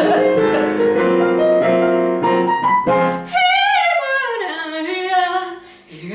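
Piano chords for about three seconds, then a woman sings a jazz vocal line that slides down in pitch and settles on a held note.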